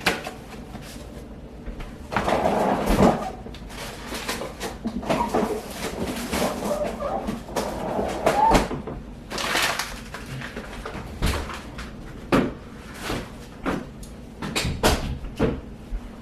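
Kitchen handling sounds: a run of scattered knocks, clicks and clatter as items are moved and put away, with a few sharper knocks near the end.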